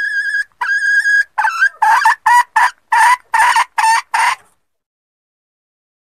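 Red junglefowl hen lure call: the end of a long rising note and a held note, then a run of about eight short, harsh notes in quick succession, stopping about four and a half seconds in.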